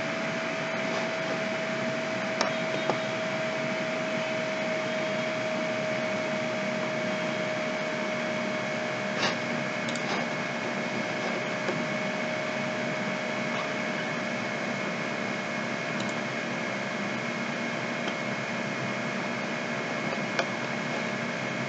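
Steady machine hum with hiss and a couple of fixed tones, like a fan or appliance running in a small room. A few faint, scattered clicks of the kind a computer mouse makes.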